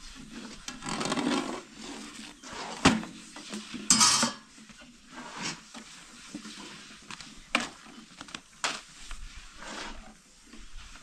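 Clatter of bread-making utensils: knocks of a thin wooden rolling pin on a dough board and clinks of metal bowls and a metal griddle, as flatbread is rolled out. One sharp knock about three seconds in, and a short hiss a second later.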